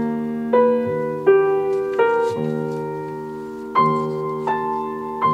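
Piano playing a slow, soft passage alone: held chords with a new note struck about every second, each ringing on and fading.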